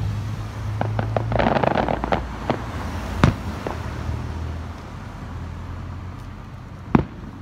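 Aerial fireworks bursting: a rush of crackling between one and two seconds in, several smaller pops, and sharp booms about three seconds in and near the end. A low steady hum runs underneath.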